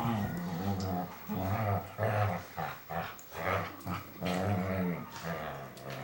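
Whippets growling in play while they wrestle: a run of short, low growls with brief breaks between them.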